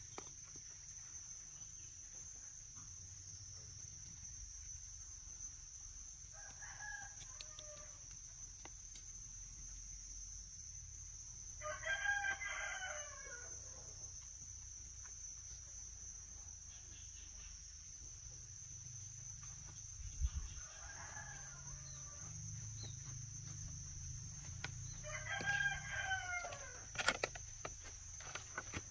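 Roosters crowing, four crows in all: a faint crow, then a loud one, then another faint and another loud, each lasting a second or two. A steady high insect buzz runs underneath.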